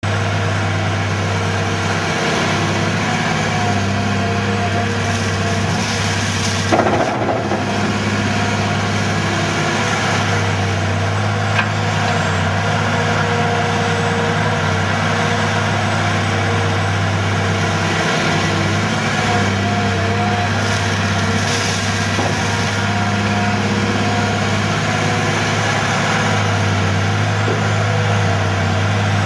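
A Caterpillar 345B long-reach excavator's diesel engine running steadily while it digs gravel, with higher whining tones that come and go as the boom and bucket move. A single sharp knock about seven seconds in.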